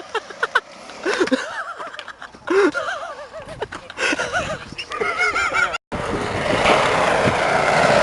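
Short squeaky chirps that rise and fall in pitch, then, from about six seconds in, a skateboard's wheels rolling steadily on concrete.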